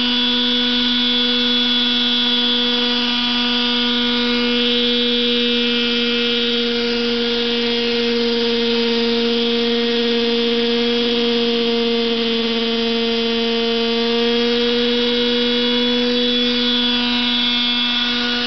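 Radio-controlled model helicopter running: a steady high whine from its motor and spinning rotor as it hovers low, sets down and lifts off again. The pitch sags slightly about two-thirds of the way through.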